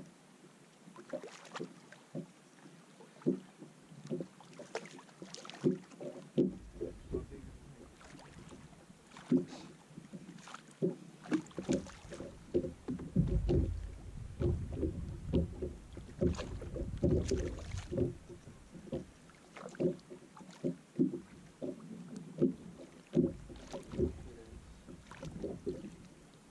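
Small waves slapping against the hull of a small fishing boat, with many irregular knocks. In the middle there is a stretch of wind rumble on the microphone.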